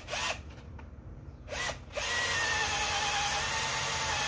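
Cordless 18-volt drill boring a long bit into a wet wooden fence post: two short trigger blips that spin up and die away, then a steady run from about halfway through.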